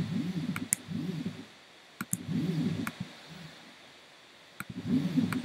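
X-Carve CNC router's stepper motors jogging the carriage in about five short moves. Each move is a whine that rises then falls in pitch as the axis speeds up and slows down, with the longest about two seconds in. Sharp clicks fall between and at the start of the moves.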